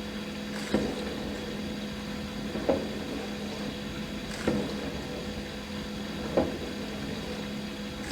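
Dishwasher running mid-cycle: a steady pump-motor hum, with a short surge about every two seconds, four times in all.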